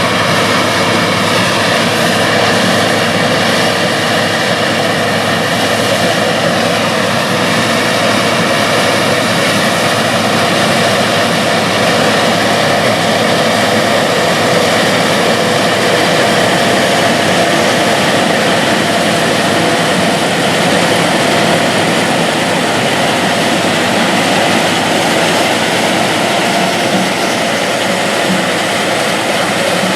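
Classic combine harvester running steadily while harvesting corn, its engine and threshing machinery making a constant sound.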